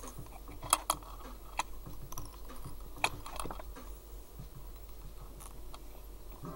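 Quiet handling noise of fly tying: thread being wrapped over deer hair on a hook held in a vise, with a few sharp light clicks in the first half over a faint steady hum.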